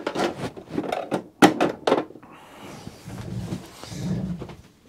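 Hand tools clicking and knocking against the mower's metal parts several times, then a couple of seconds of rubbing and scraping, as a small screwdriver works a control cable's end into place.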